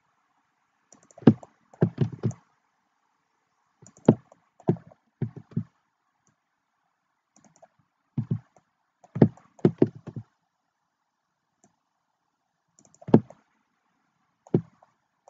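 Computer keyboard keys and mouse buttons clicking in short, irregular groups of one to four clicks while Blender's Ctrl+R loop-cut shortcut is used.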